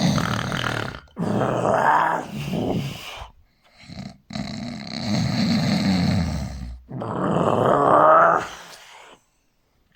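Loud, exaggerated human snoring: four long rasping snores with a short one between them, some sliding up in pitch, stopping about nine seconds in.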